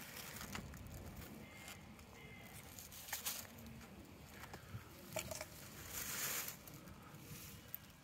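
Faint, scattered rustling and scuffing: a handful of short scrapes, with a longer one about six seconds in.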